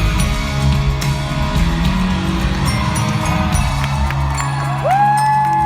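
Live rock band playing the closing instrumental bars of the song, with drums and bass. Near the end a single high note glides up, holds for about a second and drops away.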